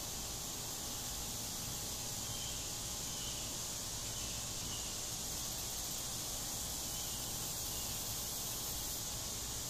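Steady high-pitched hiss of outdoor background noise with a low hum beneath it, unchanging throughout.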